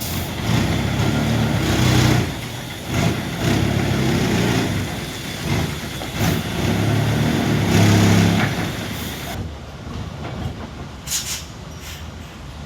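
Heavy diesel engine revving in three surges, each a couple of seconds long, then dropping back. A couple of short air hisses come near the end.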